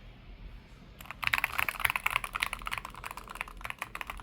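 Keys of a Keychron K10HE Hall-effect mechanical keyboard being pressed rapidly, a dense clatter of clicks starting about a second in, as the keys are tested one after another.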